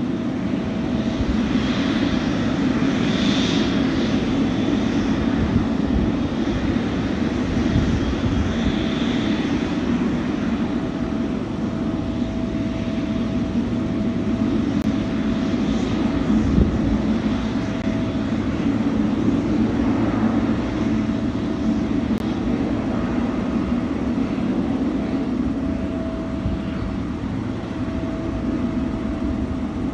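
Airplane engines running with a steady drone and a faint steady whine.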